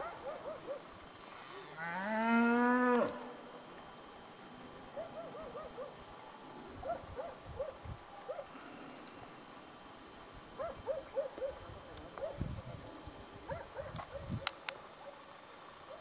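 A cow moos once, loudly, about two seconds in: a single call rising in pitch, lasting about a second. Short faint chirps recur throughout, with a couple of sharp clicks near the end.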